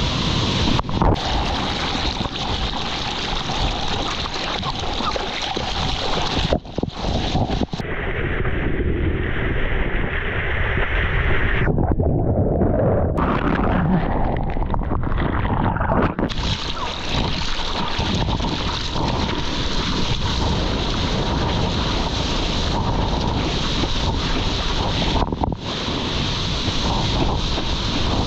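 Rushing whitewater and wind buffeting the camera's microphone as a surfer moves through broken surf. For a second or two around the middle the sound goes muffled as the camera dips underwater.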